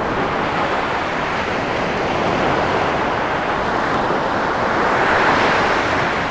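Gulf of Mexico surf washing onto the beach: a steady rush of waves, swelling a little about five seconds in.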